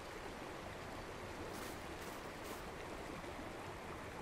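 Faint steady rushing noise of outdoor ambience, with three short soft hisses about one and a half to two and a half seconds in.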